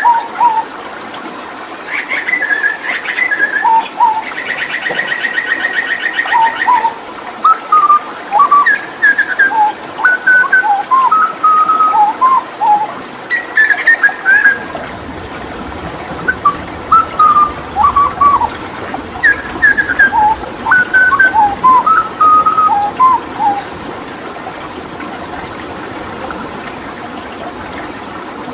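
Hooded butcherbird singing a string of short whistled notes, with a fast rattling trill about five seconds in. A steady background of running water sounds underneath, and the song stops near the end.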